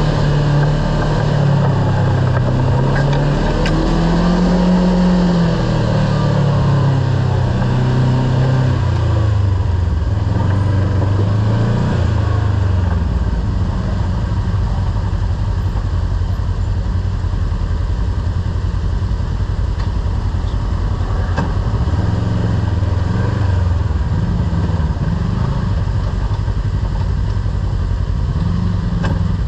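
Kawasaki Teryx KRX side-by-side's parallel-twin engine running on the trail, its pitch rising and falling with the throttle through the first dozen seconds, then lower and steadier.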